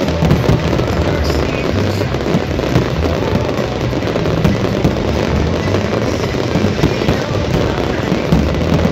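Many fireworks going off at once, a continuous rumble of booms and crackling with frequent sharper bangs on top.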